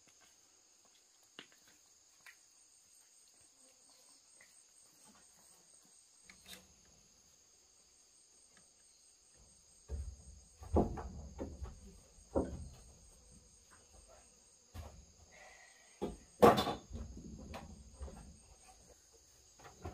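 Insects chirping steadily in a high, even buzz, with a fainter pulsing chirp above it. About halfway in, a run of knocks and thumps begins, the loudest about two thirds through.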